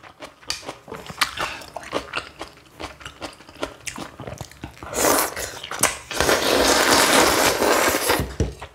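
Close-miked eating of clam kalguksu: chewing with small crunchy clicks, then a short slurp about five seconds in and a loud, long slurp of noodles or broth lasting about two seconds near the end.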